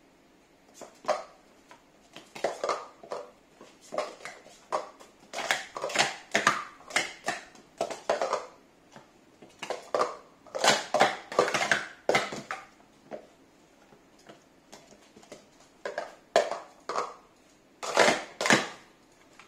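Plastic speed-stacking cups clicking and clattering in rapid bursts as they are stacked up into pyramids and swept back down during a sport stacking cycle, with short pauses between bursts.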